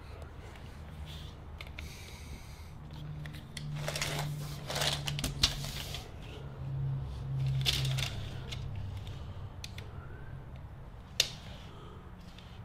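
Steel tape measure drawn out across a sheet of drywall on a workbench, with scraping and rattling in two stretches and a sharp click near the end.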